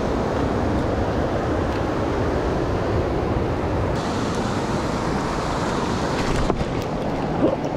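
Steady rush of a fast-flowing river, an even hiss of moving water, with a few faint clicks about six and a half seconds in.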